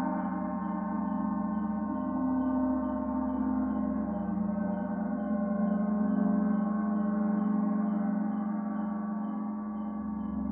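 Meditation gong ringing in a sustained, dense wash of many overlapping tones, swelling slightly midway. Faint cicada chirps sound steadily underneath, about two or three a second.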